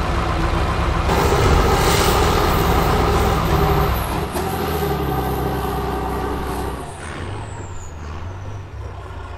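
Engine of a six-wheeled all-terrain vehicle on low-pressure tyres, running under load as it climbs out of a creek up a steep bank. It drops in level about seven seconds in.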